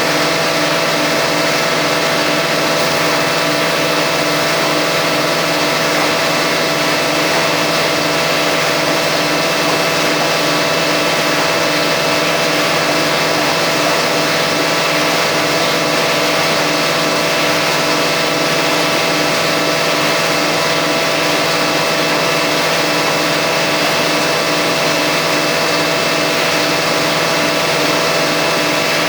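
Plywood factory rotary veneer lathe running steadily: a loud, unbroken machine hum of several steady tones with a fast pulsing beat, over dense mechanical noise.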